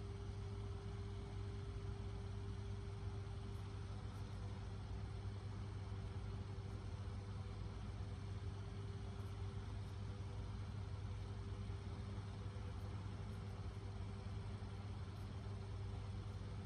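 Steady low background hum with a constant faint tone above it, unchanging throughout, with no distinct events.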